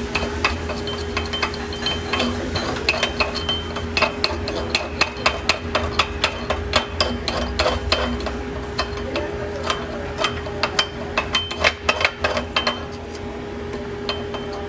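Chipping hammer knocking slag off a vertical flux-core weld: quick, irregular metallic taps and clinks, several a second, thinning out about two seconds before the end, over a steady hum.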